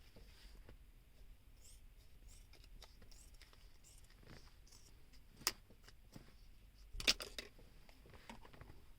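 A knife scraping and cutting through hard plastic in short, faint strokes. A sharp click comes a little past halfway, and a quick cluster of clicks follows a second or so later.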